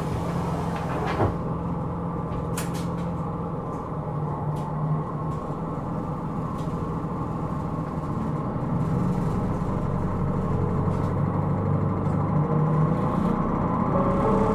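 Interior running sound of a Hino Rainbow II (SDG-KR290J1) non-step bus, heard inside the cabin: the diesel engine runs steadily, with a short knock about a second in. From about eight seconds in, the engine note rises and grows louder as the bus gathers speed.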